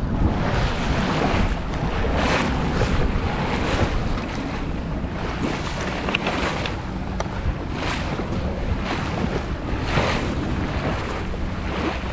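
Wind buffeting the microphone over water washing along a sailboat's hull, swelling in gusts every second or two.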